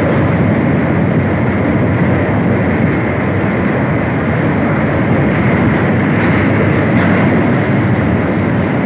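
Train running at a steady speed over a river bridge, a continuous rumble of wheels on the rails heard from inside the carriage.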